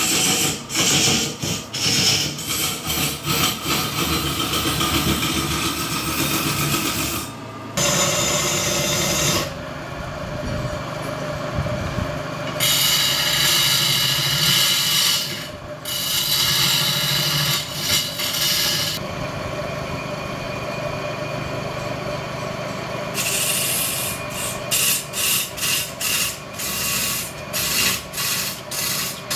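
Turning tool cutting a large block of wood spinning on a lathe: a rough scraping hiss, pulsing quickly near the start and again near the end, with sudden changes in tone several times.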